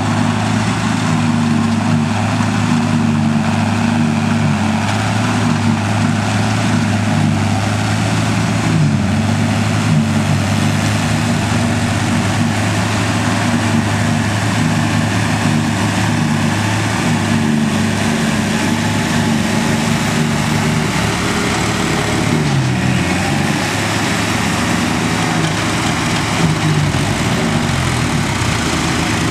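Diesel tractor engine running steadily at working speed, its pitch shifting a few times near the end.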